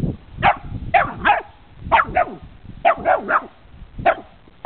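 A dog barking at a cat, about nine sharp barks in quick clusters of two or three, each bark falling in pitch.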